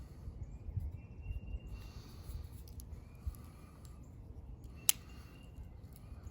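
Low outdoor rumble of handling with a single sharp click about five seconds in, a Victorinox Fieldmaster Swiss Army knife's tool snapping into place as he changes from the saw to the large blade.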